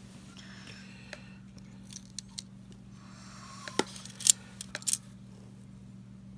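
Half-dollar coins clinking and clicking against each other as they are handled, with a cluster of sharper clinks about four to five seconds in.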